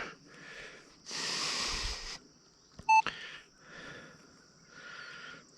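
A metal detector gives one short, pitched beep about three seconds in. Around it come bursts of breathy hiss close to the microphone, the loudest about a second in.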